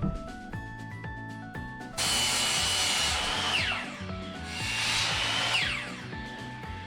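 Electric power tool run twice on wood, each time starting suddenly with a steady high whine and a noisy cutting sound, then the whine falling as the motor winds down after release.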